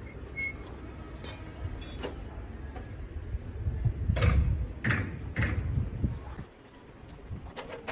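A metal rod knocking and scraping against a truck radiator's sheet-metal shroud and tank, about three strong strokes a little past the middle, over a steady low rumble that drops away a couple of seconds before the end.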